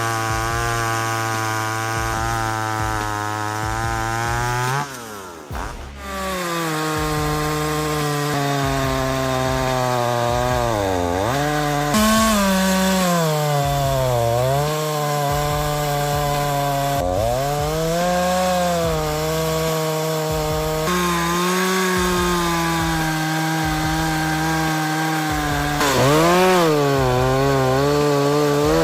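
Tanaka TCS51EAP two-stroke chainsaw running at high revs and cutting wood. Its engine pitch sags and recovers again and again as the chain bites in under load, with a brief break about five seconds in.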